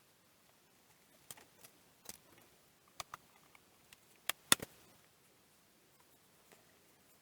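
Scattered light clicks and knocks of small plastic parts being handled and fitted together as the digital microscope is reassembled, the loudest knock about four and a half seconds in.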